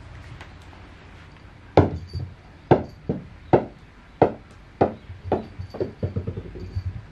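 A small rubber super ball bouncing on a wooden floor. About two seconds in it starts with a loud clack, then bounces again and again, each bounce a little softer and the gaps shorter, until it patters quickly to rest near the end.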